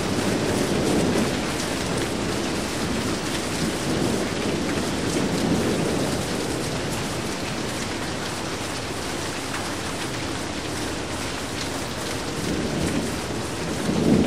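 Rain falling steadily with rumbles of thunder. The rumbles swell up about a second in, again around four to six seconds in, and loudest near the end.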